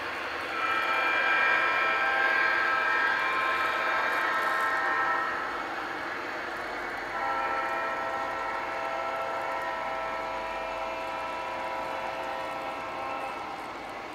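G scale model diesel locomotive's sound system blowing two long horn blasts, each several seconds long, the second on lower notes. Underneath is the steady running noise of the model train rolling along the track.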